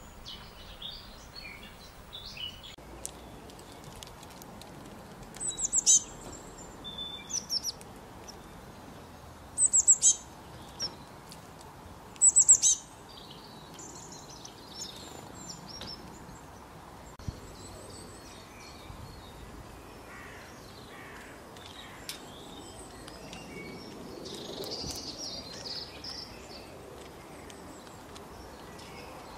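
Small birds calling: loud bursts of high, rapid chirps several times in the first half, with fainter twittering throughout over a steady background hiss.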